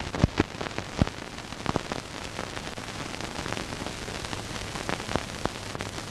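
Surface noise of an old film soundtrack: steady hiss scattered with crackles and pops, the sharpest clicks in the first second.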